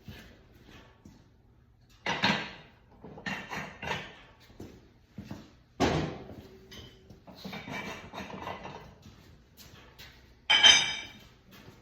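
Steel parts of a folding target stand being pulled apart and set down: metal clanks and clatter, with three loud knocks about two, six and ten and a half seconds in, the last one ringing.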